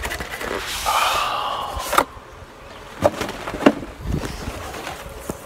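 Cardboard packaging being handled: a product box slid out of its cardboard carton with a scraping rustle and a faint squeak, then a sharp snap about two seconds in and a few light knocks.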